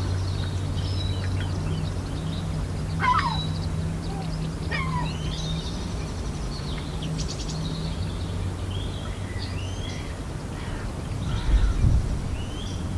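Several birds calling and chirping, with short sweeping notes, over a steady low hum; a couple of low thumps near the end.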